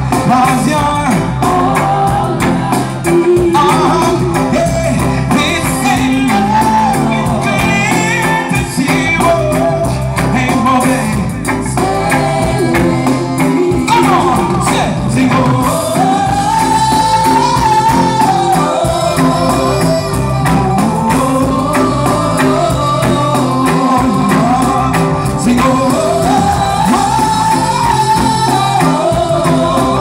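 A live reggae band plays with a male lead singer's voice over electric guitar and drums.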